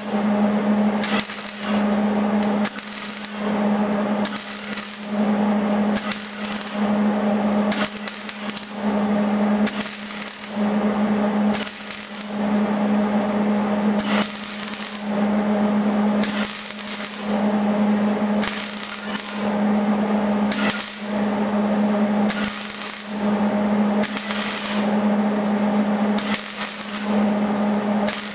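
Wire-feed (MIG) welder laying short stitch welds: bursts of crackling arc over a steady buzz, about one a second, each shorter than a second, with brief gaps between.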